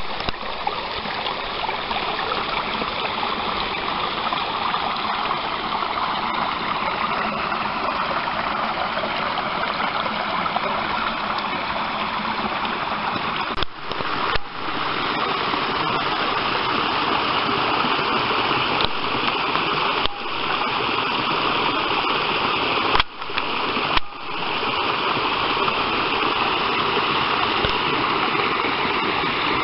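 Small stream running and splashing over rocks, a steady rush of water. It breaks off briefly a few times, about halfway through and again later.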